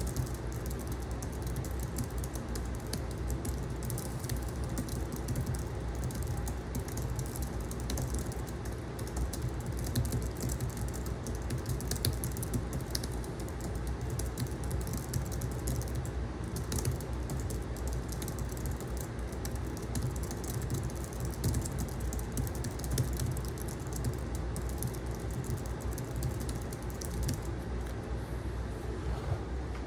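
Fast, continuous typing on a Logitech MX Keys Mac membrane keyboard with low-profile scissor-switch keys, a dense patter of soft key presses. An air conditioner hums steadily underneath, and the typing stops near the end.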